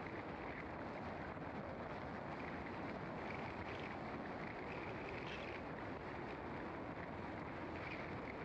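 Steady tyre and wind noise of a car being driven, an even rumble and hiss with no distinct engine note.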